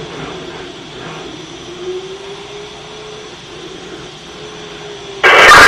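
Fire department radio channel hiss with a faint, slowly wavering tone, then about five seconds in a sudden loud burst of static as a transmission keys up.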